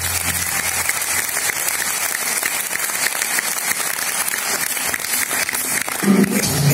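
Theatre audience applauding. Music starts again about six seconds in.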